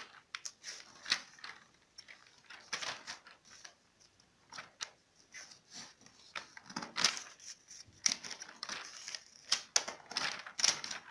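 Glossy magazine pages being flipped through by hand: a run of crisp paper rustles and flaps at irregular intervals.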